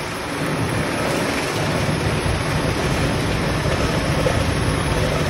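Fire engine's diesel engine running steadily while it pumps water to charged hose lines, a loud, even rumble.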